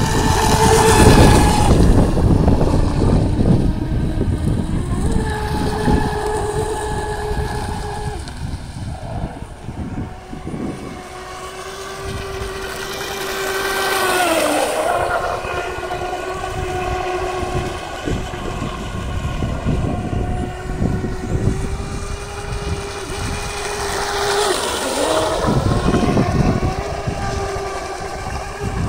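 Brushless electric motor of a radio-controlled hydroplane boat (a 3670-size 2650kv motor on a flexible shaft and propeller) running at speed, a steady high-pitched whine over the hiss of water spray. The whine swells and fades as the boat passes close and runs off, and its pitch dips briefly about halfway through.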